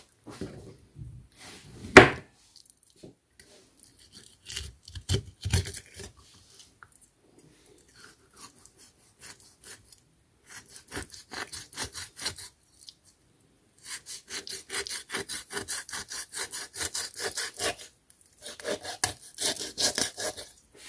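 A kitchen knife filleting a large fish on a wooden cutting board, the blade rasping along the backbone and ribs in runs of rapid, even scrapes. A single loud knock about two seconds in.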